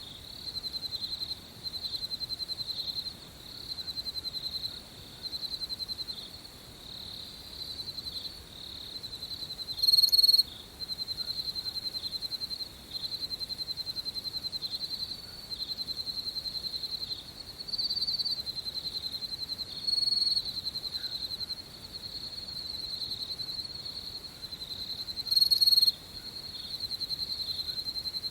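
Crickets chirping in a high-pitched chorus of rapid pulsing trills, broken by short pauses every second or two. Two louder, closer chirps stand out, about ten seconds in and again near the end.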